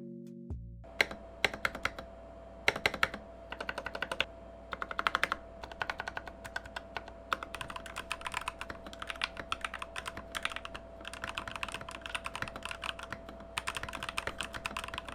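Typing on a Keychron K6 keyboard fitted with stock Alpaca V2 linear switches: keystrokes start about a second in, a few single presses at first, then fast continuous runs of clacks.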